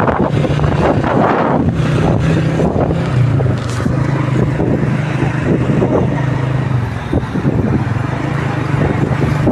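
An engine running steadily, its hum dropping slightly in pitch about three seconds in, under a loud rushing noise.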